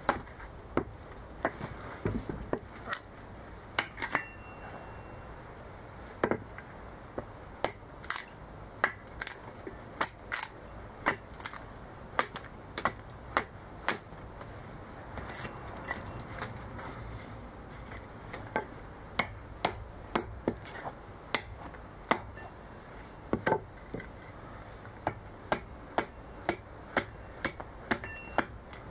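Hatchet chopping into an upright green cherry plum log on a chopping block, hewing a spoon blank: a run of sharp chops, about one or two a second, with short pauses between runs.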